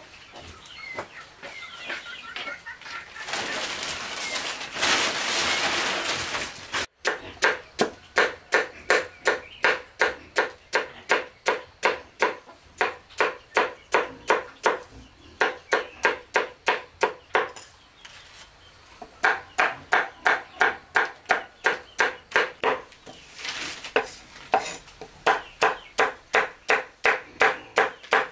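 Knife chopping greens for pig feed, about three quick even strokes a second, with a short pause midway. For the first several seconds, before the chopping starts, chickens cluck.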